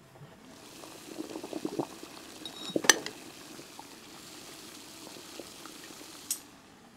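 Steam hissing and water bubbling in a wooden steamer as its wooden lid is lifted off, with a sharp wooden knock about three seconds in.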